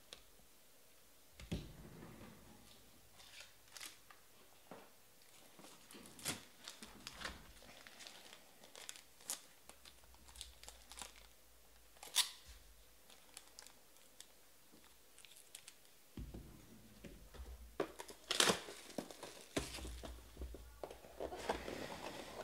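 Cardboard trading-card box and its paper inner wrapping being torn and peeled open by hand: scattered quiet clicks and crinkles, with louder tearing and rustling about three-quarters of the way through.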